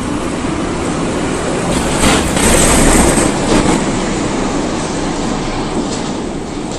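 Berlin U-Bahn train running on the track, with a high-pitched wheel squeal about two seconds in that lasts a little over a second.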